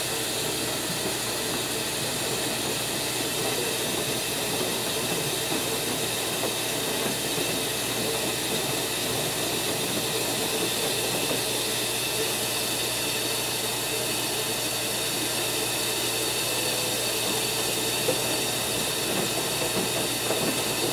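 Steady industrial noise: a dense, unchanging hiss with faint steady tones running through it.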